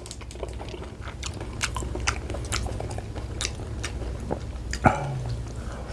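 Close-miked chewing and biting into catfish, with many sharp crunchy clicks. A brief low hum from the eater about five seconds in.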